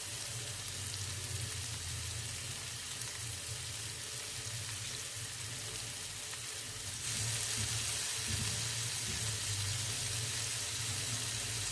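Chopped tomato and onion masala sizzling in hot oil on a tava, a steady frying hiss that grows a little louder about seven seconds in.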